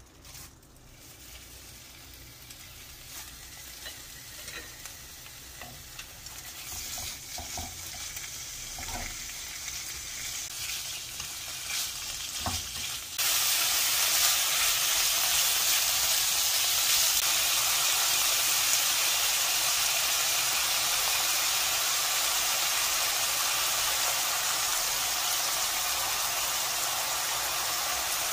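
Sliced pork strips frying in oil in a nonstick wok, sizzling as they are stir-fried with a wooden spatula. The sizzle starts faint and builds with scattered clicks, then jumps abruptly much louder about halfway through and holds steady.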